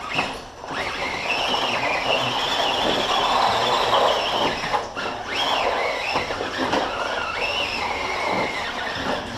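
Side-by-side off-road vehicle engines running hard under throttle, their whine rising and falling over and over, with short dips as the throttle lifts.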